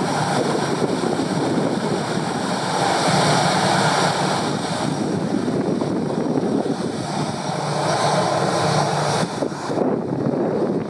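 Airbus A321-211's CFM56-5B turbofan engines running at taxi power as the airliner rolls by: a steady jet rush with a thin high whine above it.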